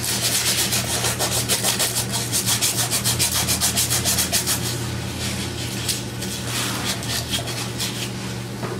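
Emery cloth rubbed briskly back and forth around a metal gas pipe, a fast rhythmic scratching of several strokes a second that eases off about five seconds in and comes back briefly; the pipe's surface is being roughened and cleaned of rust and paint before a repair putty is applied.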